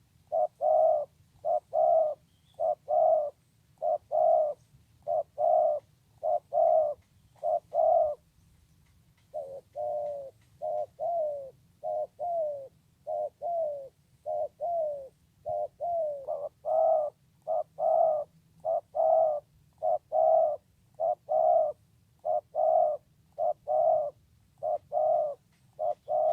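Spotted dove (tekukur) cooing in a long series of two-note coos, about one pair a second. After a short pause about eight seconds in, the coos are softer and slightly falling for several seconds before growing louder again.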